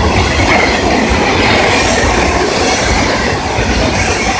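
CSX freight train's cars rolling past at close range, steel wheels running on the rails in a loud, steady rumble.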